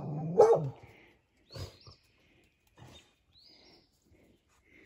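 Dog barking: one loud bark at the start, then a couple of fainter short calls, with faint high bird chirps in between.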